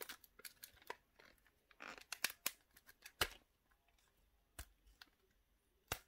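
Faint handling of hard plastic toy parts: scattered sharp clicks and brief rubbing as a plastic Ride Watch holder is slid onto a rubbery belt strap, with a few louder clicks near the middle and just before the end.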